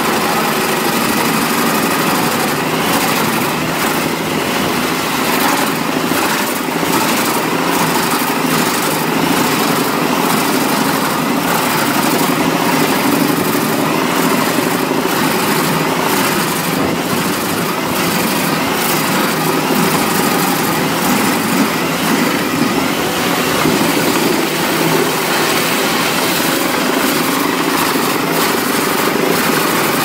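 Albach Diamant 2000 wood chipper running at full load as whole logs are fed into its drum, a loud steady engine and chipper drone with frequent cracking and crunching of the wood being chipped.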